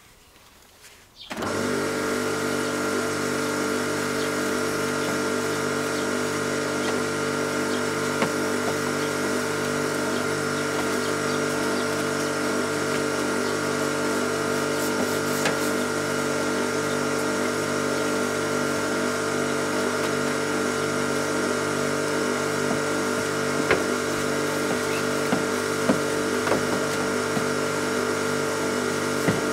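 Ruris PRO Power Jet 1900 pressure washer's induction motor and pump start about a second in and run steadily, spraying foam through the brush attachment: a steady hum with a pulsing beat underneath and a spray hiss over it.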